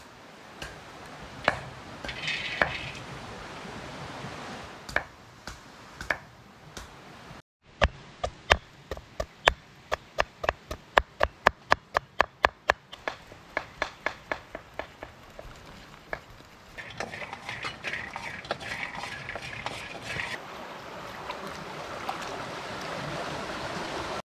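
Food preparation with kitchen utensils. There are a few scattered knocks, then a rapid, even run of strikes at about five a second lasting some eight seconds, then a stretch of scraping and rustling.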